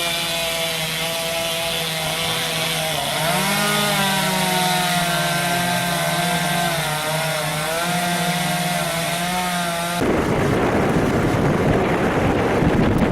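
Chainsaw running steadily, its pitch dipping and rising as the throttle changes. About ten seconds in it cuts off abruptly to wind buffeting the microphone.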